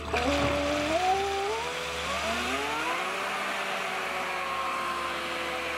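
Electric motor of a 3D-printed RC jet boat whining as it speeds up: the pitch climbs in steps for about three seconds, then holds steady over a hiss.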